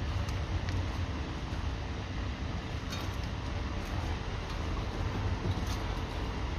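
A few faint metallic clinks from a car's front suspension as the lower control arm is pulled downward, over a steady low rumble.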